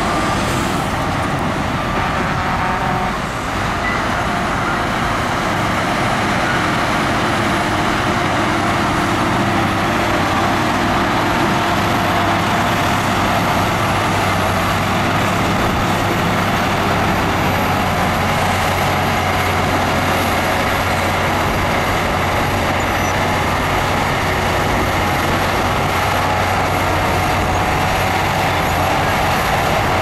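Crawler bulldozer's diesel engine running steadily as it pushes soil, with a slight dip about three seconds in.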